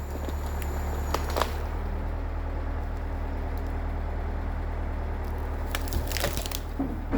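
Case 680G backhoe's diesel engine running steadily. A few crunching, cracking sounds come about a second in and again near the end.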